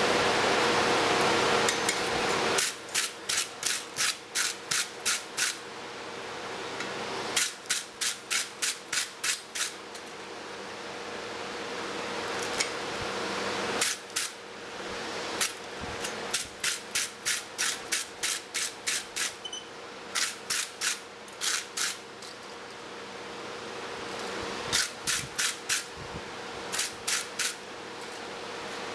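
Handheld steel wire brush scrubbed back and forth over a hot twisted steel bar held in tongs, brushing off forge scale. It comes in several quick runs of about three strokes a second, with pauses between the runs, over a steady rushing noise.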